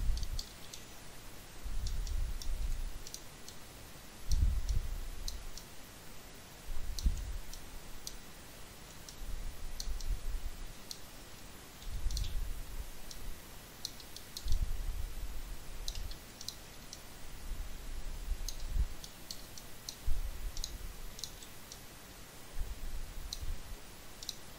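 Computer mouse clicking: short, sharp clicks coming singly and in quick little clusters at irregular intervals. Low, dull rumbles recur every couple of seconds and are louder than the clicks.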